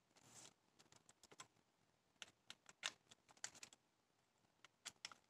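Faint, irregular clicking of a ratcheting screwdriver turned by hand, snugging down small engine bolts.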